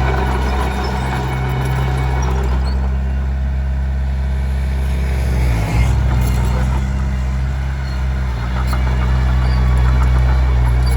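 Komatsu D21P bulldozer's diesel engine running steadily while working, its note dipping briefly twice, about halfway through and again near three-quarters.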